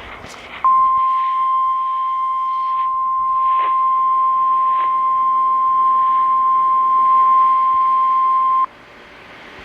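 Weather radio sounding the 1050 Hz warning alarm tone of an Emergency Alert System tornado warning: one loud, steady, unbroken tone that starts just under a second in and cuts off suddenly about eight seconds later. Faint radio hiss and a couple of clicks lie behind it.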